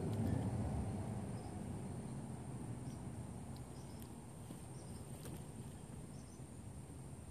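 Outdoor ambience with a steady high-pitched insect drone and a few faint, short high chirps, over a low rumble that dies down over the first few seconds.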